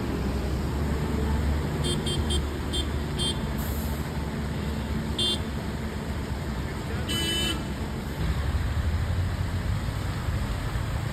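Road traffic on a rain-flooded road: a steady wash of vehicle noise with a low engine rumble. A few short high chirps come between about two and five seconds in, and a brief high-pitched toot about seven seconds in.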